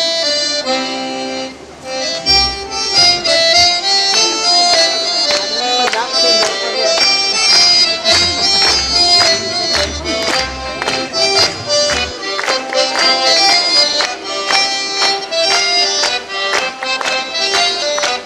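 Live folk dance tune with a steady, lively beat. The two dancers' hand claps fall sharply on the beat, and there are low thuds from feet stamping on the stage floor, a few seconds in and again about halfway through.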